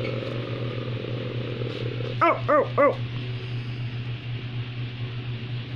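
A person imitating a dog: three quick, high barks about two seconds in, over a steady low hum.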